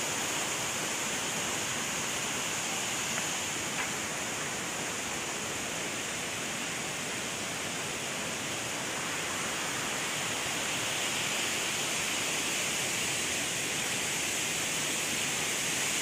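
Steady rushing of the waterfall and river, an even hiss with no change. Two faint clicks come about three to four seconds in.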